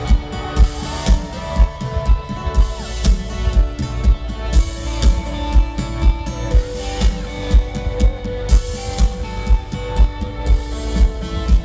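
Live rock band playing an instrumental passage: guitars over a steady kick-drum beat of about two beats a second, with no vocals.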